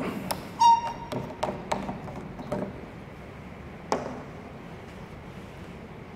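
Plastic ink bottle being handled: a few light clicks and taps over the first four seconds, with a brief squeak just after half a second in.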